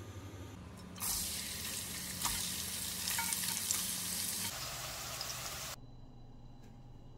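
Minced garlic, sliced red chilli and leek sizzling in oil in a wok, a steady hiss with scattered small pops. It starts about a second in, eases slightly, and cuts off suddenly near the end.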